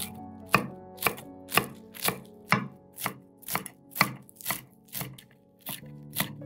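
Knife chopping on a cutting board in a steady rhythm of about two strokes a second, with a short pause about five seconds in before the chopping resumes.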